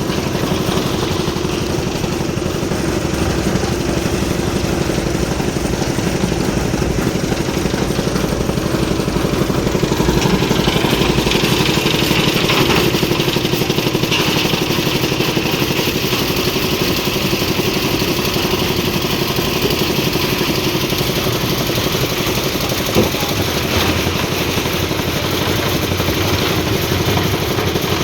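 Engine of a concrete mixer and lift machine running steadily during a slab pour, with a single sharp tick near the end.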